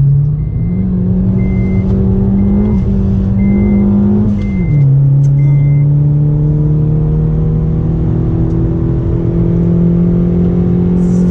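Car engine heard from inside the cabin, pulling at track speed as the car accelerates. Its note steps up about half a second in, drops sharply a little after four seconds as if on an upshift, then climbs slowly again; a faint short beep repeats about once a second over the first six seconds.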